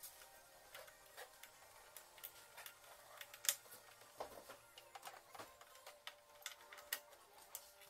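Scattered light clicks and taps of small plastic and metal parts being handled and fitted by hand in the film channel of an opened Eumig R2000 film projector, with one sharper click about three and a half seconds in.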